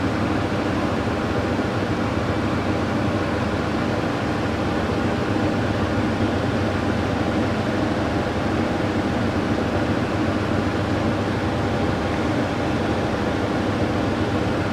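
Walton top-loading washing machine spinning its drum at high speed, a steady even running noise. This is the short spin between the wash and the rinse that throws the foam out of the clothes.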